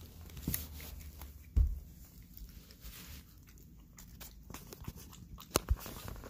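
A cat eating wet pâté from a bowl: small licking and chewing clicks, with a heavy thump about a second and a half in and a sharper knock near the end.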